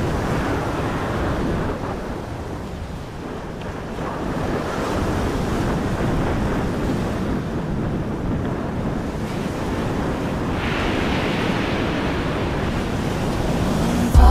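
Sea surf washing on a beach, with wind buffeting the microphone.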